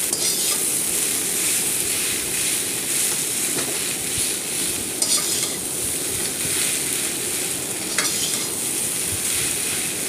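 Mashed boiled potato with masala frying in oil in a kadhai, sizzling steadily while a slotted metal spatula stirs it, with a few scrapes of the spatula against the pan.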